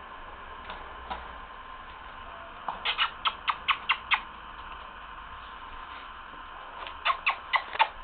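Two quick runs of sharp ticking clicks, about five a second: the first of about eight clicks a third of the way in, the second of four or five near the end.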